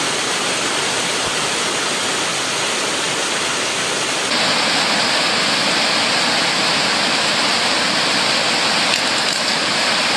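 Steady rushing noise with no distinct events, growing louder and brighter about four seconds in.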